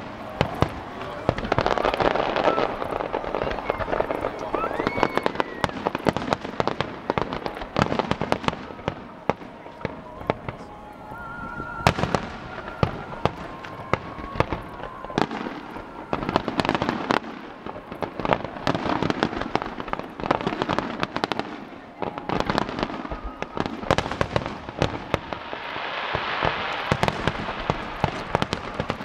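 Aerial fireworks shells bursting in rapid, overlapping succession with crackling and echoing reports, in louder clusters every several seconds. Music plays faintly underneath.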